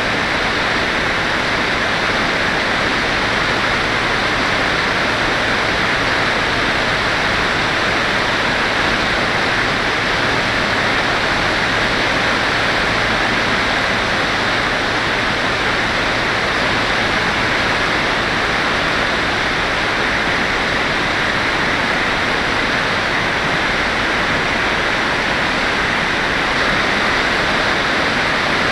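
Steady rushing hiss of wind over the onboard camera's microphone on an RC glider in flight, even in level throughout.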